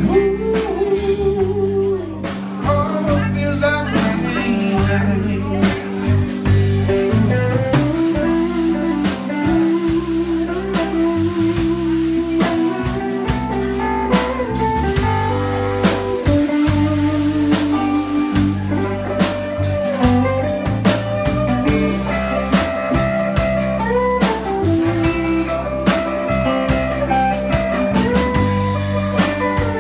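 A live blues band playing without vocals: an electric guitar plays lead lines with notes that bend in pitch, over a bass guitar and a steady drum kit beat.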